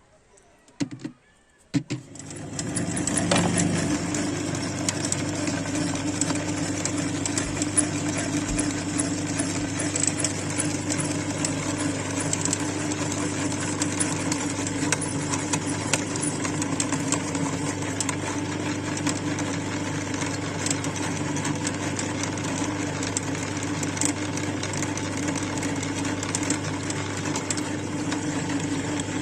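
A few short knocks, then an electric meat grinder's motor switches on about two seconds in and runs steadily with an even hum.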